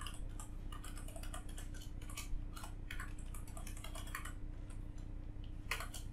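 Typing on a computer keyboard: a quick, irregular run of key clicks, with a pause of about a second and a half before a few more keystrokes near the end.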